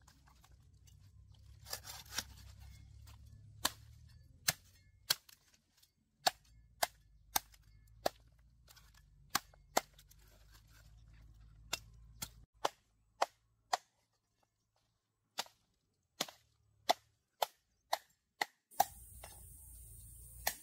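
A series of short, sharp knocks at an irregular pace, roughly one a second with a few short pauses, over a faint low hum.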